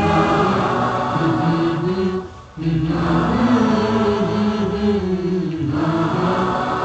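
Male voices chanting wordlessly in chorus as the backing of an Urdu naat, in long wavering phrases, with a short break a little over two seconds in.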